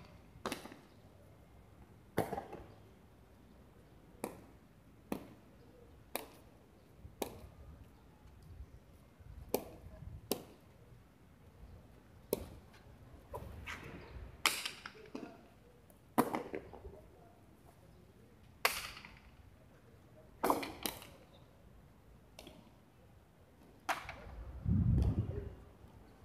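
Hard jai alai pelota, thrown with a wicker cesta, cracking against the fronton's front wall and bouncing on the floor: sharp cracks every second or two, some with a short echo. A low rumble near the end.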